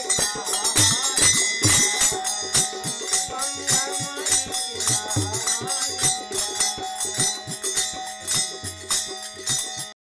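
Indian devotional folk song: a man singing to a harmonium, with jingling hand percussion keeping a fast beat. The music cuts off abruptly near the end.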